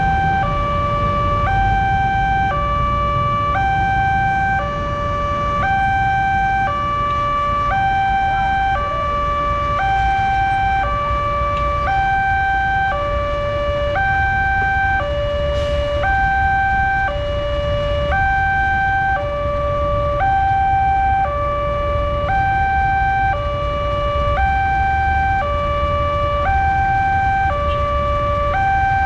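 Railway level-crossing alarm sounding from its loudspeaker: a steady two-tone hi-lo warning that alternates about every two-thirds of a second, signalling that the barriers are down for a train. A low traffic rumble runs underneath.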